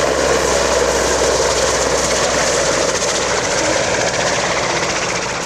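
EH101 (AW101) three-engine helicopter flying: steady, loud turbine and rotor noise, easing slightly near the end.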